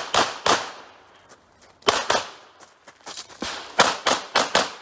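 Handgun fired in quick strings: three fast shots, a gap of about a second, two more, then a rapid run of five or six shots near the end.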